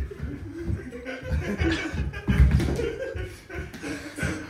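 Two men scuffling on a wooden floor: feet and bodies thud repeatedly, the heaviest thump a little past halfway as one of them goes down onto the floor, with chuckling and grunts over it.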